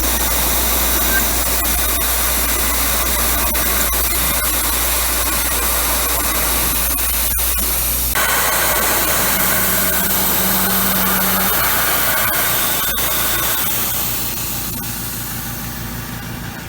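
Tormach PCNC 770 CNC mill running a cut in aluminum, a loud steady hiss with occasional sharp ticks. The sound changes abruptly about eight seconds in, with a brief low hum, and eases off near the end.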